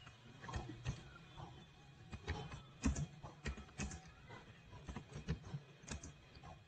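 Computer keyboard being typed on slowly: faint, unevenly spaced keystrokes.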